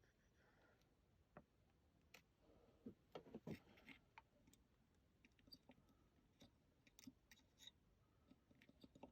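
Faint, irregular clicks and light taps of small tools and parts being handled during bench repair work on an amplifier, with a brief cluster of louder knocks about three seconds in.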